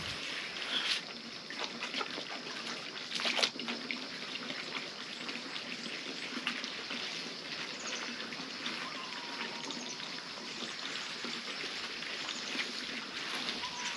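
Water trickling steadily, with a couple of sharper clicks about one second and three and a half seconds in.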